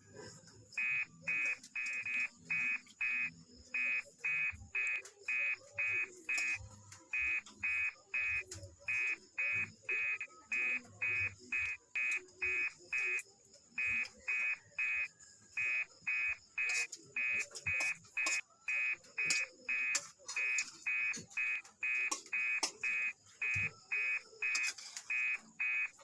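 Electronic beeper sounding a long run of short, high beeps, about two to three a second, broken now and then by brief pauses.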